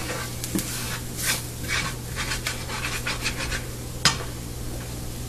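A spoon scraping and stirring onions and spices that are frying in a nonstick pan, in a quick run of short strokes over a faint sizzle. About four seconds in there is a single sharp knock as the spoon is set down in the pan.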